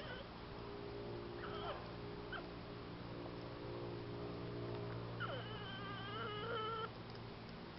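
A porcupine whining as it eats: two short falling squeaks, then a long wavering whine about five seconds in. A steady low hum runs underneath.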